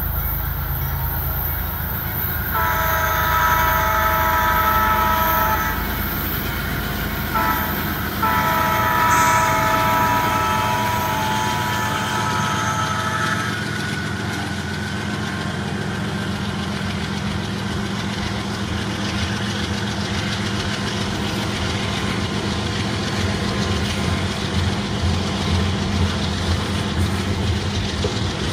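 Model diesel locomotive's sound decoder (ESU LokSound 5) sounding a multi-chime horn: one long blast, a brief toot, then another long blast. Under and after it runs a steady train rumble as the locomotives and loaded coal hoppers roll past.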